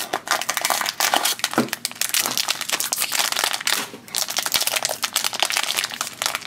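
Foil blind bag crinkling and crackling in the hands as it is drawn out of a small cardboard box and turned over, a dense run of crackles that eases briefly about four seconds in.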